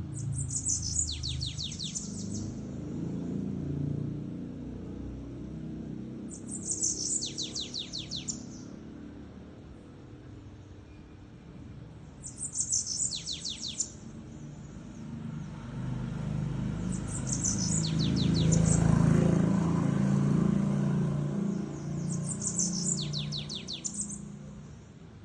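A bananaquit (sibite) sings its high, fast trilled 'batuque' song five times, each phrase about a second and a half of rapid falling notes, repeated every five to six seconds. Behind it a low rumble swells and fades, loudest about three-quarters of the way through.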